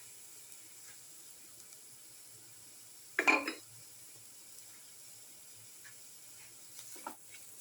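Chicken pieces going into a hot pan of sautéed shallots, garlic, ginger and crushed pepper: one short loud burst about three seconds in as they land, a smaller one near the end, and faint sizzling in between.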